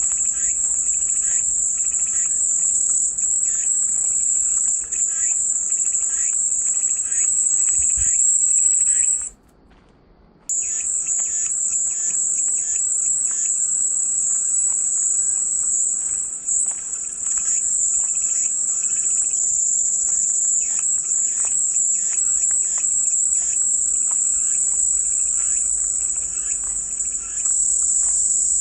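Cicadas singing in a steady, high-pitched buzz, with fainter quick chirps underneath. The whole sound cuts out abruptly for about a second around a third of the way in, then resumes at full strength.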